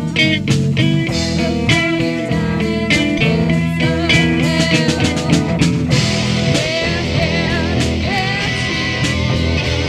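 Freestyle psychedelic blues-rock jam led by guitar, with bending notes over a steady beat.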